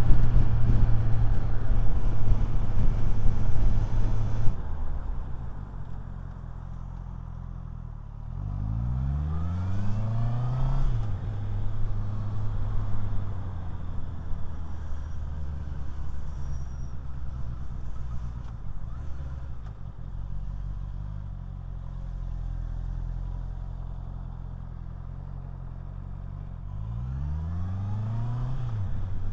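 Motorcycle engine heard from a helmet-mounted lavalier mic while riding: engine running with wind rush for the first few seconds, then a steadier, quieter low engine hum. The revs rise and drop back, as when pulling away and changing gear, about eight seconds in and again near the end.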